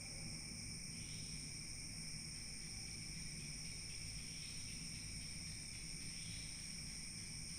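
Steady, faint chirring of night insects in several high, unbroken tones, over a low rumbling hum.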